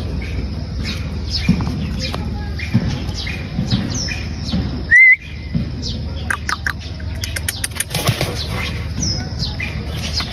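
Birds chirping in short scattered calls with rustling and clicks over a steady low hum; one louder, short rising chirp about halfway through.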